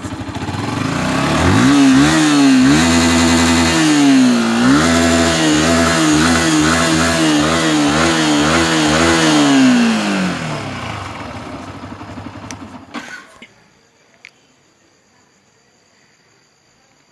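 Yamaha R15 motorcycle's single-cylinder engine being revved, its pitch swinging up and down about once a second. About ten seconds in, the pitch drops and the sound dies away to near quiet.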